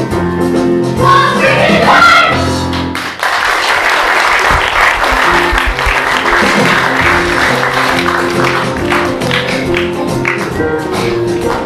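A young cast and band finishing a stage song, the voices climbing to a final note; about three seconds in, a theatre audience breaks into applause, which is the loudest sound, while the band keeps playing underneath.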